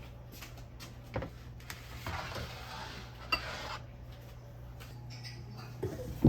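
Cutlery and dishes clinking in a few light, separate strikes, with a short stretch of scraping in the middle and a louder knock at the end, over a steady low hum.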